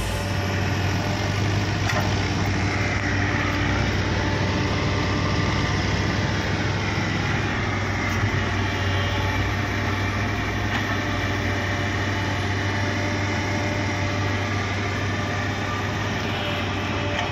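Heavy diesel engine of logging machinery running steadily, with a faint higher whine that rises and falls during the first half.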